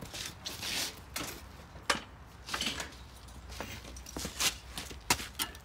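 A screwdriver clicking and knocking against a torch-cut window in a rusted exhaust pipe, prying the cut pieces out: short, irregular clicks, the sharpest about two seconds in.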